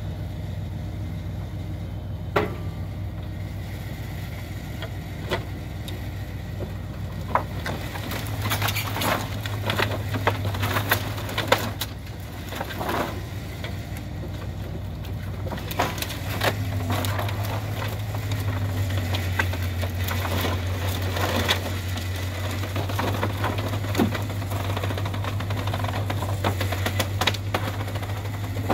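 Timber truck's diesel engine running to drive a hydraulic loader crane, picking up in revs about eight seconds in and again just past halfway, while the grapple's load of slab-wood offcuts knocks and clatters.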